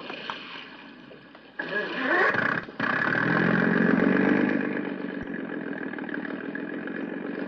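Radio-drama sound effect of a motorboat engine starting: a short burst of cranking about a second and a half in, then the engine catches about three seconds in and runs loudly before easing to a lower, steady level as the boat pulls away.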